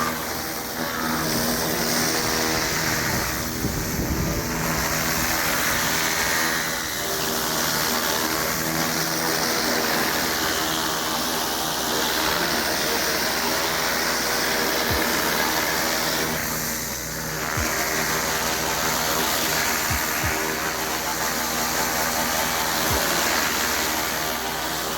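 Petrol-engine pressure washer running steadily under the hiss of high-pressure water spray.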